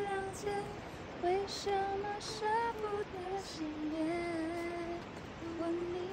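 A woman singing a slow melody on her own, without accompaniment, with a couple of long held notes in the middle.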